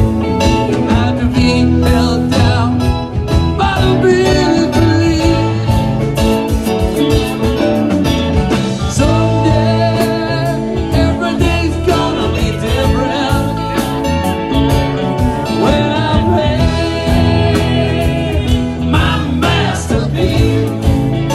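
Live band playing a country-rock song on guitars, bass and drums, with a steady drum beat throughout.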